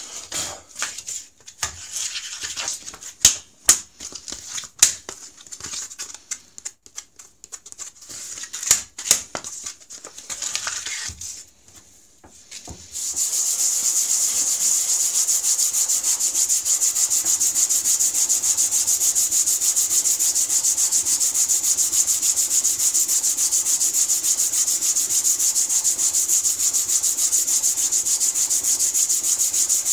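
A waterstone rubbed back and forth on sandpaper laid flat, to flatten a sharpening stone that has worn out of flat. A steady, fast, even rasping starts just before halfway through. Before that come scattered clicks and knocks.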